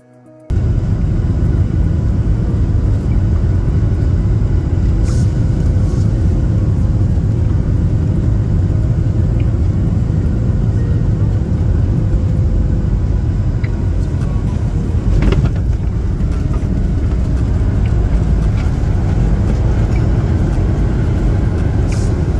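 Cabin noise of a Boeing 737 airliner on its landing approach: a loud, steady roar of engines and rushing air, with a brief knock about fifteen seconds in.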